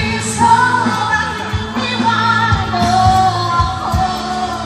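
Live band playing a pop-rock song through a PA system: a singer holding long, wavering notes over guitars, bass and a steady drum beat.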